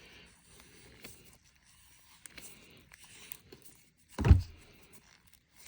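Quiet handling sounds, faint rubbing and small clicks, with one dull thump a little past four seconds in, like an object being set down on a table.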